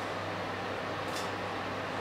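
Steady hiss with a constant low hum, and a faint brief scrape of a fork on a china plate about a second in as a fried potato pancake is slid onto it.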